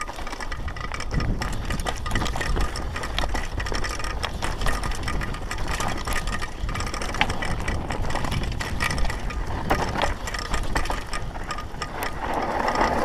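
Downhill mountain bike ridden fast over rocky, loose dirt, heard from a helmet camera: continuous rattling and clicking from the bike and its tyres on the rocks, over a low wind rumble on the microphone.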